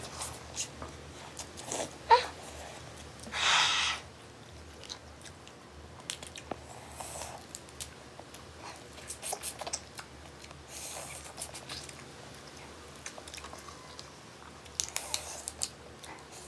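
Close-up eating sounds: noodles slurped in a short burst early on, then chewing, with small wet clicks and crackles as prawn shells are pulled apart and peeled by hand.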